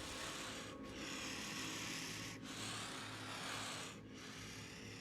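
Rasping hiss in three long strokes of about a second and a half each, with short breaks between them, then going on fainter near the end.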